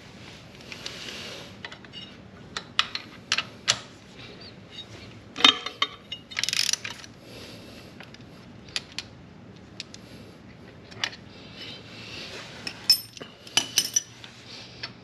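Intermittent metallic clinks and taps of wrenches and small parts against a motorcycle's shift linkage as a nut is worked loose. The clicks are scattered, with the loudest about five and a half seconds in and a quick cluster near the end.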